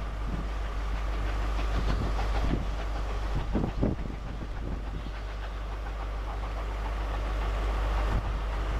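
Steam-hauled train pulling away, the locomotive working hard under black smoke and the carriage wheels clattering unevenly over pointwork.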